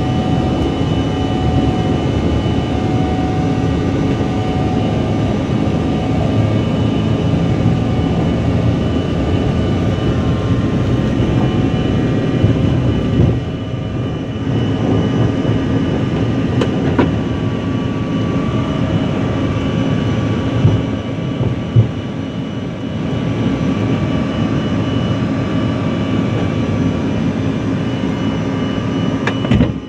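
Airliner engines at takeoff power heard from inside the cabin, a loud steady rush with steady whining tones over a low rumble. A few sharp knocks come partway through.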